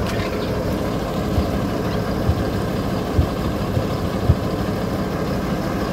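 A motor vehicle's engine running steadily at low revs, with several short dull low thumps in the middle of the stretch.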